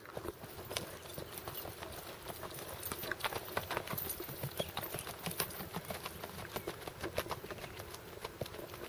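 Hoofbeats of a single-footing horse, a quick, steady run of hoof strikes on a dirt track.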